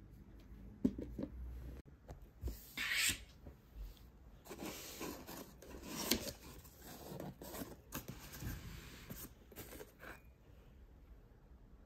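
A few light taps of a plastic appliance being handled, then cardboard rubbing and scraping in uneven bursts as a small cardboard box is opened and a hand reaches inside.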